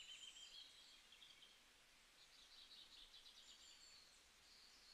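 Near silence with faint bird chirps and trills in the background, in two short spells.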